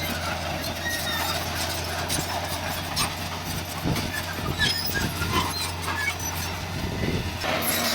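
Heavy diesel earthmoving machinery running steadily, with scattered metallic clanks and knocks.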